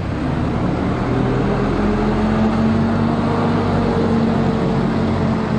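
Diesel engine of a single-decker city bus running steadily as the bus drives slowly past, a constant low drone with a steady hum.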